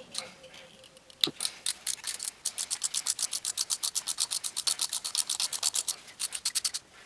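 Ratchet wrench clicking fast and evenly, about eight clicks a second, as a welded-on nut turns an exhaust stud out of the engine.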